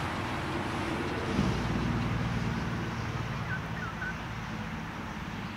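Electric double-deck passenger train running away into the distance, a steady rumble of wheels on rail that slowly fades. A low hum comes in about a second and a half in, and a few short bird chirps are heard a little before the end.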